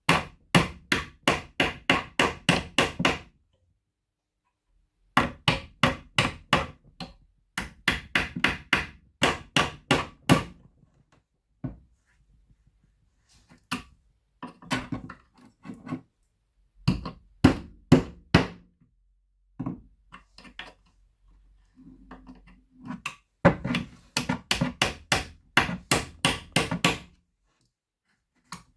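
Hammer blows in quick runs of about three to four strikes a second, each strike ringing with a metallic tone, with pauses and a few single knocks between the runs.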